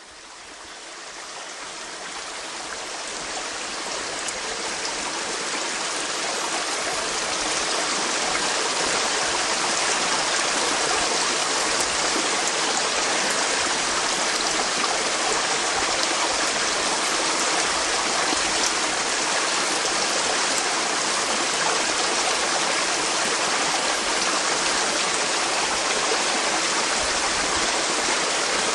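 Stream water rushing over rocks, a steady hiss of flowing water that fades up from silence over the first several seconds.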